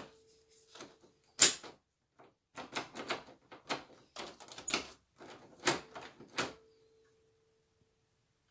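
Metal clicks and rattles of a doorknob and its latch being worked, with one sharp knock about one and a half seconds in. A faint metallic ring hangs on after the first click and again after a click near six seconds in.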